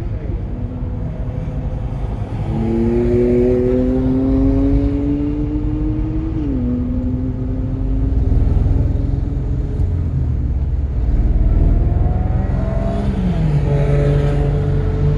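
Volkswagen GTI Mk7's turbocharged 2.0-litre four-cylinder engine accelerating hard, its pitch rising steadily through a gear and then dropping at an upshift about six seconds in. Its pitch falls again near the end as the car slows, with heavy low wind and road rumble throughout.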